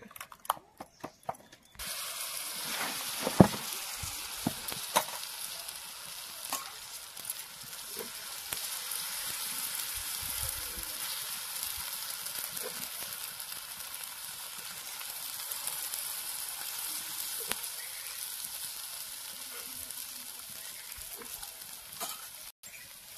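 Wheat-flour batter sizzling on a hot iron tawa. The steady hiss starts abruptly about two seconds in, when the batter hits the pan, after a few light clicks. A few short knocks sound over it.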